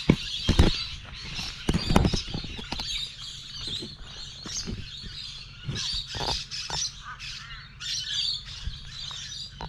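Birds chirping and squawking continuously, with scattered footsteps and knocks on dry leaf litter, the loudest about half a second and two seconds in.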